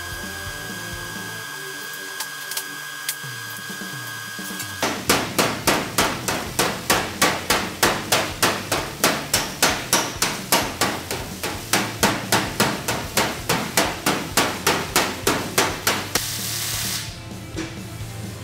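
Panel-beating hammer blows on the steel rear quarter panel of a Mk2 Ford Escort, hammer-and-dolly work to smooth out the repaired panel: a long, even run of sharp metallic strikes, about three or four a second, starting a few seconds in. A short hiss follows near the end.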